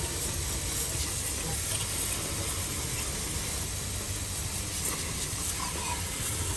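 Pressure washer spraying a steady jet of water onto the bare metal of the engine's water pump mounting surface: a continuous hiss.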